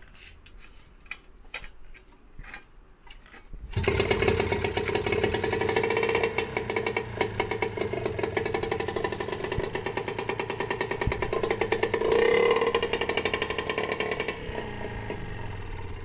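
Some clicks and knocks of the starter cord being readied, then about four seconds in the British Seagull single-cylinder two-stroke outboard fires on the pull and runs with a fast, even beat, starting readily after its tank, fuel lines and carburettor were cleaned. Its revs rise briefly around twelve seconds in, then settle to a lower, steady run.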